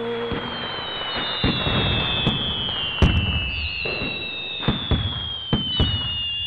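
Fireworks going off: a steady crackle with about six sharp bangs, the loudest about three seconds in, and several long whistles slowly falling in pitch.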